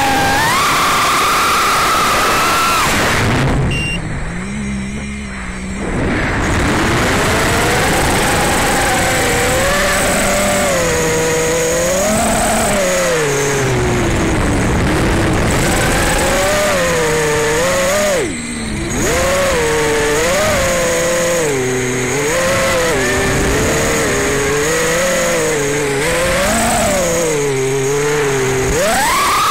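Phoenix 215 racing quadcopter's motors and propellers whining in flight, heard from a camera mounted on the frame. The pitch rises and falls constantly with the throttle, and the sound drops away briefly twice, about four seconds in and again around eighteen seconds in.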